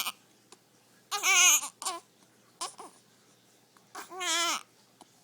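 A baby's high, wavering vocal sounds, halfway between babbling and crying, come in separate bursts: a longer one about a second in, short catches around two and three seconds, and another longer one near the four-second mark. The short voiced catches fit a baby with the hiccups.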